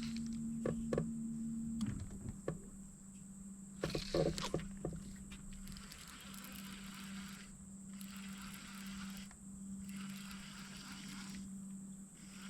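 Steady electric motor hum from a boat's trolling motor, its pitch dropping slightly about two seconds in, with a few sharp knocks and clicks against the boat.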